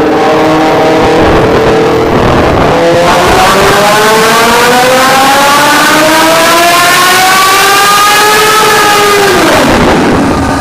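Honda CBR1000RR-R SP superbike's inline-four engine on a dyno: it holds steady revs, dips briefly about two and a half seconds in, then pulls with a long smooth rise in pitch for about six seconds, a dyno power run, before the throttle closes and the revs fall near the end.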